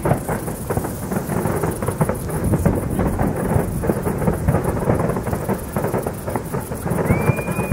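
Fireworks display: shell bursts going off in a dense, continuous run of booms and sharp bangs. A short rising whistle comes near the end.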